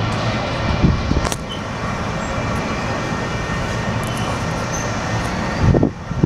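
Union Pacific double-stack intermodal freight cars rolling past: a steady rumble and rattle of steel wheels on rail, with one sharp click about a second in. The rumble eases near the end.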